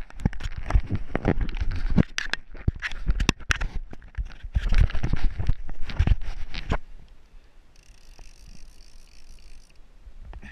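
Rustling, buffeting and knocking of handling and wind on a body-mounted camera's microphone while the angler works a fishing rod and reel from the kayak, dying down after about seven seconds. A faint high buzz follows for about two seconds.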